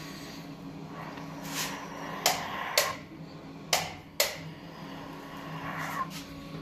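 Four sharp clicks or knocks in two pairs, each pair about half a second apart, over a steady low hum.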